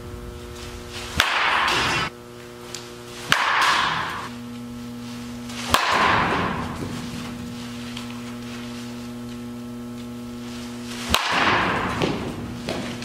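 Baseball bat hitting pitched balls four times, each sharp crack followed by about a second of rushing noise that fades, over a steady hum.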